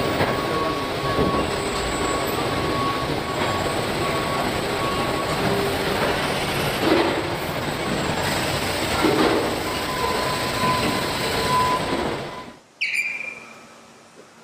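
Car-factory body-shop floor noise: a dense, steady machinery din with a few steady whining tones and occasional clanks as industrial handling robots work. A little before the end it cuts to a much quieter robot cell, with one short high squeak.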